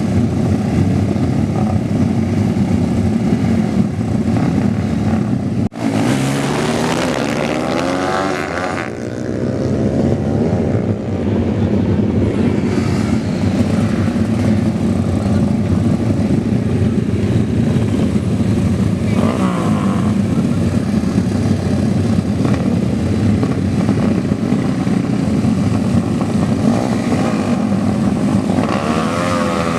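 Modified drag-racing motorcycle engines running loud and hard, their revs rising and falling. There is a brief break about six seconds in, and the pitch sweeps up and down a few times after it.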